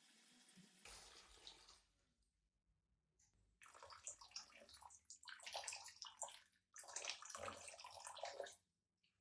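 Running water splashing in three irregular spells a few seconds long, with short gaps between.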